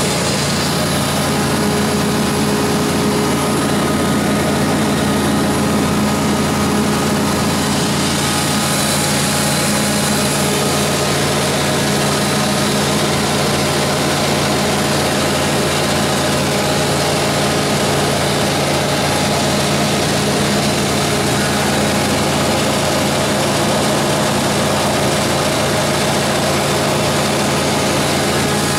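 Cummins 100 kW natural gas generator set, its Ford LSG-8751 V8 engine running steadily at its 1800 rpm governed speed: a constant, unchanging hum.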